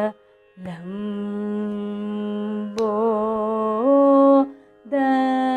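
A woman singing long held notes of a Carnatic geetam in raga Malahari, a single melodic line without words. Her pitch steps up twice near the end of the long note.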